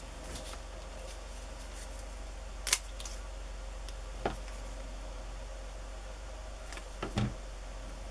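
Hands handling paper and small craft supplies on a tabletop: a few short taps and clicks, the sharpest about a third of the way in and two more later, over a steady low hum.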